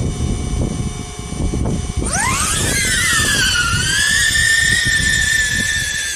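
DJI Avata quadcopter's motors starting up about two seconds in: the propellers spin up in a fast rising whine that wavers and then holds at a steady idle pitch. Wind buffets the microphone throughout.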